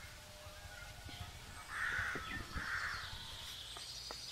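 A crow cawing twice in quick succession, two harsh calls about two seconds in.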